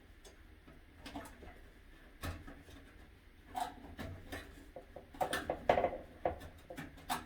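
Faint, irregular clicks and small metallic taps from handling a bare copper ground wire as it is wrapped around a light fixture bracket's grounding screw, with a cluster of louder taps near the end.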